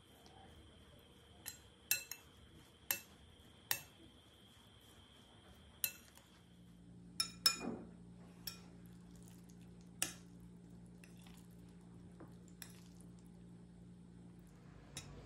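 Metal spoon mixing grated zucchini in a glass bowl, striking the glass with sharp clinks every second or so, about a dozen in all.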